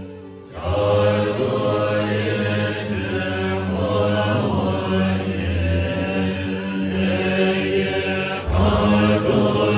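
Tibetan Buddhist monks chanting a liturgy in unison, a low-pitched group recitation; it breaks off at the start and resumes about half a second in.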